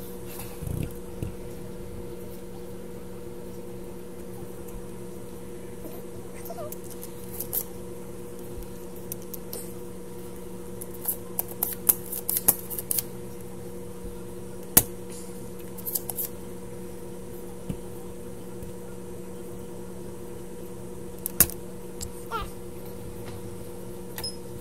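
Steady electrical hum with several overtones, under scattered small clicks and taps of metal tools on a circuit board. The taps bunch together near the middle, with one sharper click about fifteen seconds in.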